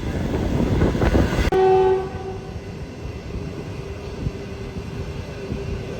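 Passenger train running with loud rushing noise. About a second and a half in, the electric locomotive's horn sounds a short blast, after which the train rolls on more quietly with a faint steady tone.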